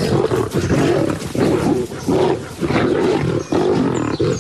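Several lions snarling and roaring over one another in rapid, overlapping bursts: lions fighting over a fresh kill.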